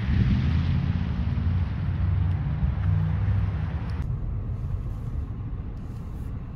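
Low outdoor rumble of road traffic mixed with wind buffeting the microphone; the higher hiss drops away about four seconds in, leaving the low rumble.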